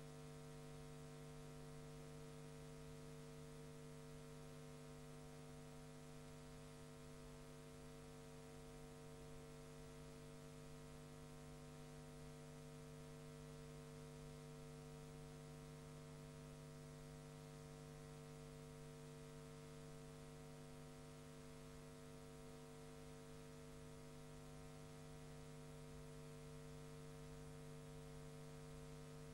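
Near silence: a steady low hum with several overtones over faint hiss, with no sound from the cricket itself.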